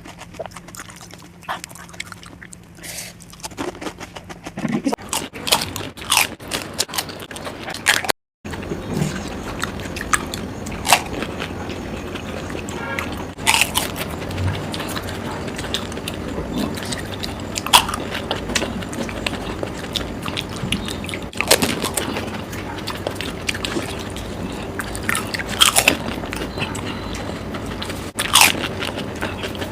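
Close-miked eating of pani puri: crisp puri shells crunching with each bite, then chewing, in many irregular bites. There is a brief cut to silence about eight seconds in.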